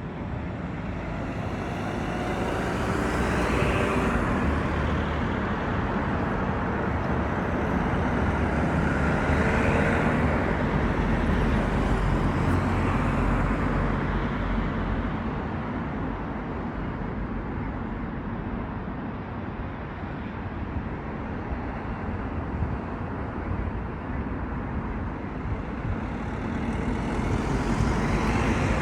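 Road traffic: vehicles passing one after another, each swelling and fading, over a steady low rumble.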